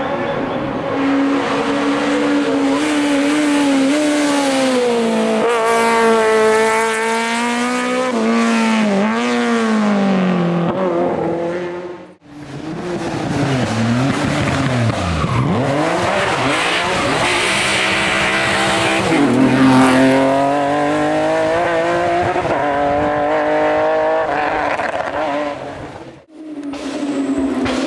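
Racing car engines at full throttle on a hillclimb, revving up and dropping back again and again through gear changes. The sound breaks off suddenly twice, about 12 and 26 seconds in, as one car gives way to the next.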